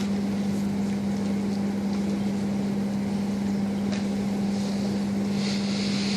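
Steady low hum over a constant noisy rush, with no speech.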